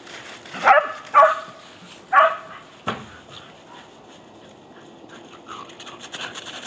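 A dog barks three times in the first two and a half seconds, followed by a single sharp click.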